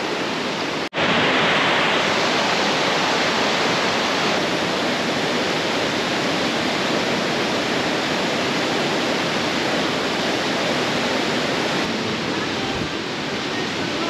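Fast river rapids rushing, a steady loud wash of water that breaks off for an instant about a second in.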